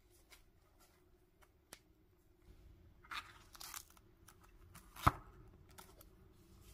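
Paper pages of a small spiral-bound notebook being handled and turned: soft, faint rustles a little after three seconds in, small clicks, and one sharp tap about five seconds in.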